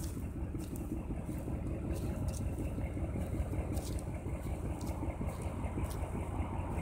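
Steady low outdoor rumble with no clear pitch, with a few faint clicks scattered through it.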